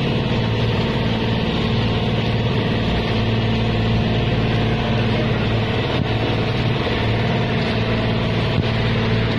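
Outrigger boat's engine running steadily under way, a constant low drone.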